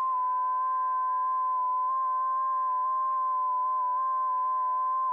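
FT8 digital signals coming through a ham radio receiver's speaker: several overlapping steady tones, the loudest near 1 kHz, each stepping slightly up and down in pitch over faint band hiss.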